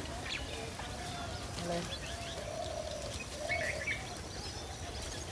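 Rural outdoor ambience: birds chirping in short calls over a steady background noise.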